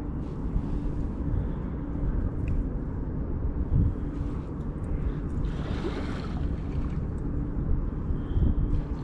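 Strong wind buffeting the microphone in a steady, gusty low rumble, with a short rushing swell of noise about six seconds in.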